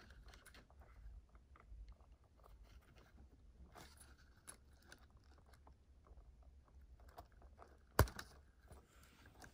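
Faint crackling and small clicks of wiring and plastic connectors being handled inside an electric scooter's deck, with one sharp click about eight seconds in.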